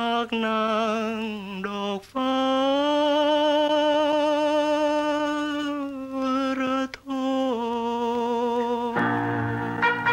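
A solo voice singing a classic Lao song, holding long notes with heavy vibrato over soft accompaniment. About nine seconds in, the band comes in more fully.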